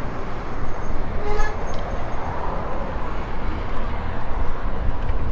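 Steady low rumble of wind and traffic noise on a body-mounted action camera's microphone, with one short beep about a second in.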